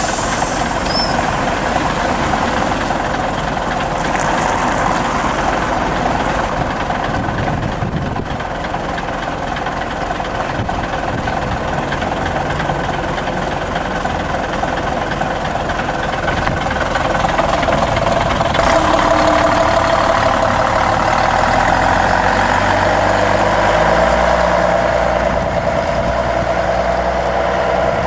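Scania L113CLB city bus's rear-mounted six-cylinder diesel idling steadily, then after a short sharp sound about 18 seconds in it grows louder and its pitch climbs and steps as the bus pulls away from the stop.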